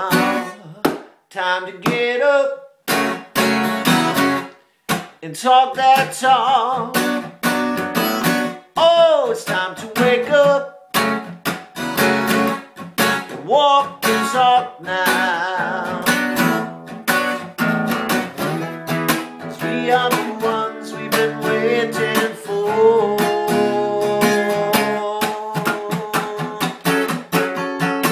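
Steel-string acoustic guitar strummed in a steady rhythm while a man sings over it.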